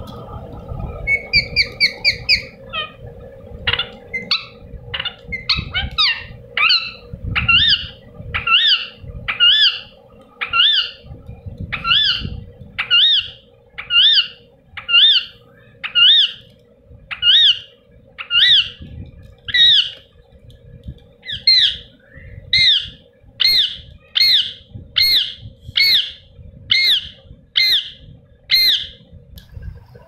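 Young Indian ringneck parakeet calling, a repeated squawk about once a second, after a quick run of higher chirps near the start.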